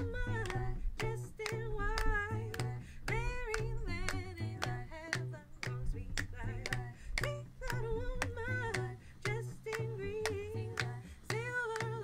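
Women singing a folk song in a small group, over a steady beat of sharp percussive hits and a low repeating bass line.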